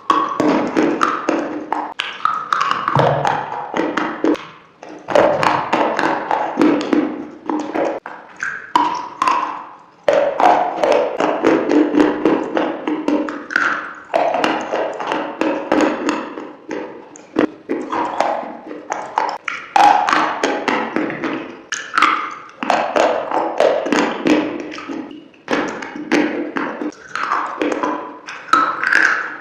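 A person chewing crunchy food close to the microphone: a continuous run of crisp crunches and clicks, with bites coming every second or so.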